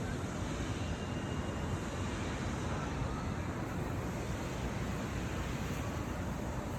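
Steady outdoor noise with a low rumble, unchanging and with no distinct events.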